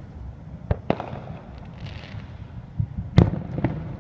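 Aerial fireworks shells bursting overhead: a few sharp bangs, the loudest about three seconds in, over a steady low rumble.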